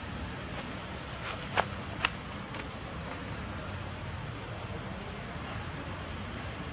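Steady outdoor background noise with two sharp clicks about half a second apart, a second and a half in.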